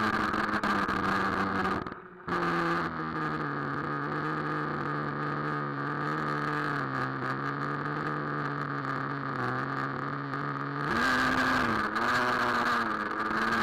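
Traxxas Nitro Rustler's small two-stroke nitro engine running. It drops out briefly about two seconds in, holds a lower, steady note for several seconds as the truck eases off, then picks up again near the end with a higher, wavering pitch.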